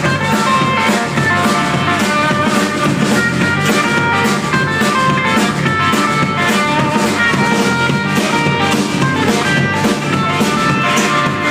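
Live band playing an instrumental passage of an acoustic rock song: guitars over a steady drum beat, with no singing.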